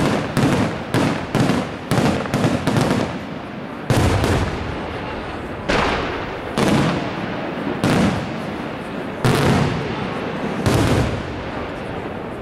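Aerial firework shells bursting. A rapid string of sharp bangs runs over the first three seconds, then single heavier booms follow about every second or so, each trailing off in echo.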